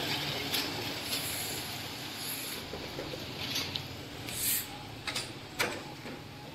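A Hyundai Venue SUV's engine running low and steady as the car creeps slowly along, with a few scattered clicks and short rustles over it.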